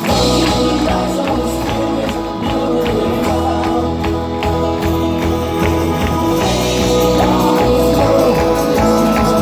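Song music from the show's playback or band: a steady beat with evenly spaced percussion hits. The bass and full accompaniment come in suddenly at the start, with a singing voice in places over it.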